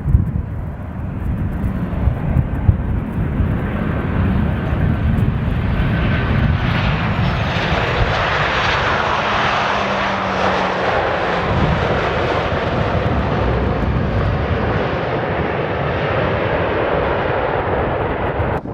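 Jet airliner engines passing, a loud rushing noise that builds over the first few seconds and then holds steady, with a faint falling tone midway; it cuts off abruptly near the end.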